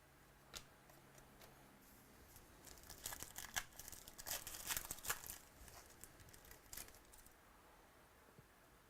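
Faint crinkling and rustling of trading-card packaging and cards being handled, in irregular crackly bursts for about four seconds starting a couple of seconds in.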